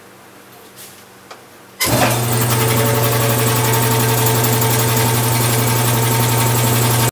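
Speedaire two-stage air compressor with a two-horsepower capacitor-start motor kicking on suddenly about two seconds in and then running steadily with a strong hum: the repaired motor starting on its own.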